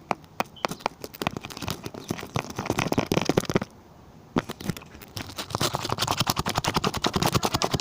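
Glue slime being mixed fast with activator: rapid wet clicking and squelching, with a short pause about halfway through.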